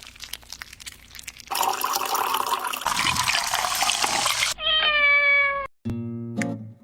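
A steady rushing noise for about three seconds, then a single drawn-out cat meow, slightly falling in pitch. A few low notes of music come in near the end.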